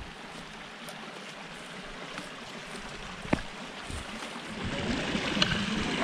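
Small mountain stream trickling through an icy gully, growing louder near the end, with one sharp knock about three seconds in.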